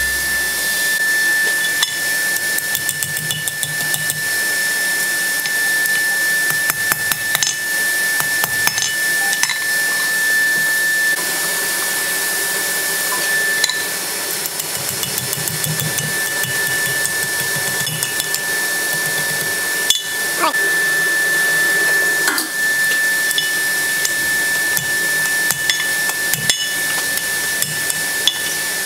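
Irregular hammer blows on hot steel at the anvil as the end of a twisted bar is bent and wrapped around a post tool. Under the blows runs a steady hiss with a constant high tone.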